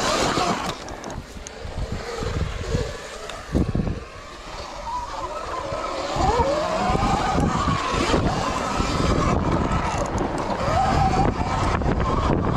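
Dirt bike engine revving up and down as it rides the track, its pitch rising and falling several times. It grows louder and steadier about halfway through.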